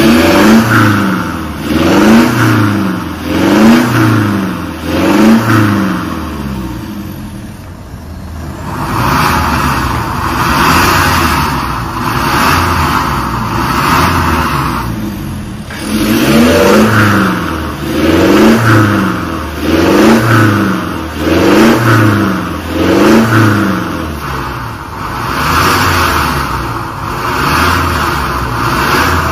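Mitsubishi Pajero Sport's engine revved through an aftermarket valvetronic exhaust cutout, in quick blips about a second apart: a run of five, then steadier running, then a run of six. The cutout valve is heard in its open racing setting and in its closed standard setting.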